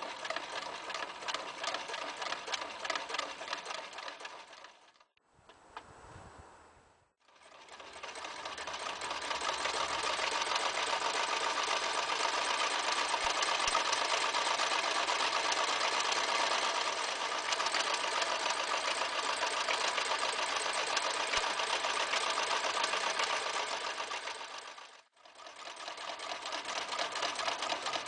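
Toyota 30 (model 5001) electric sewing machine running at speed, its needle rapidly stitching through thick layers: folded webbing, then plastic and leather belts 7 mm thick sewn with a zigzag stitch. It stops and starts again about five seconds in and near the end, and runs loudest through the belts.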